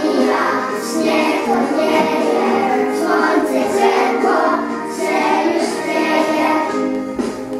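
A Polish children's song about spring, with children's voices singing over an instrumental accompaniment.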